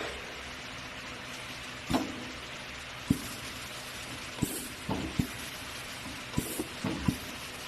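BHM Alfa 3 DW automatic boring machine at work: a steady hiss and hum, broken by irregular sharp knocks every second or so and a few short high hisses.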